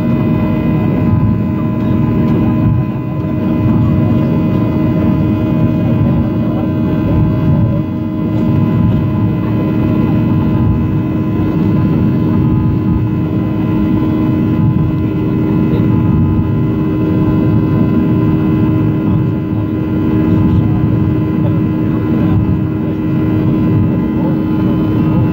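Jet airliner's turbofan engines running at climb thrust just after takeoff, heard inside the cabin: a steady, loud rumble with a hum of several fixed tones over it.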